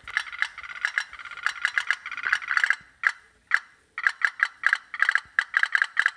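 Toy pop-pop steamboat's brass diaphragm rattling as the candle brings the water in its little boiler to the boil: uneven runs of rapid sharp ticks, with a short lull about three and a half seconds in.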